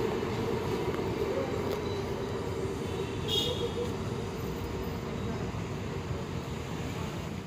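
Rolling noise of a passenger train on the rails, slowly fading as its last coach recedes down the line, with a brief high squeak about three and a half seconds in.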